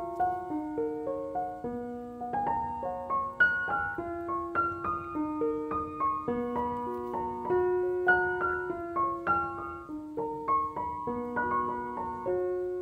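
Background piano music: a gentle melody of single notes over held low notes.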